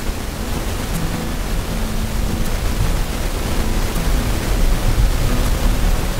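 Wind buffeting the microphone outdoors: a loud, rushing hiss over a fluctuating low rumble, growing a little louder after about halfway.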